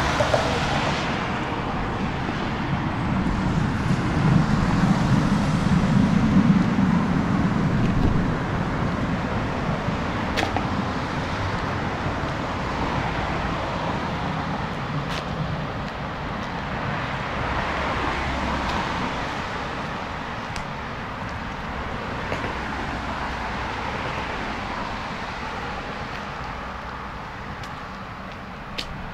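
Steady outdoor road-traffic noise. A low rumble swells between about four and eight seconds in, then settles back.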